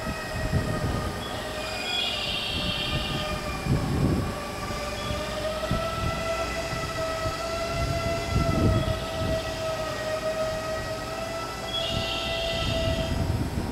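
Diesel railcar idling at a station platform: a steady whine of several tones over a low engine rumble that swells now and then.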